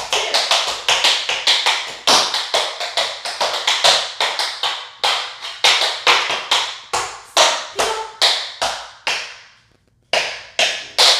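Tap shoes' metal taps striking a wooden floor in a fast, rhythmic tap-dance sequence that thins out toward the end, then after a short pause, three last single taps.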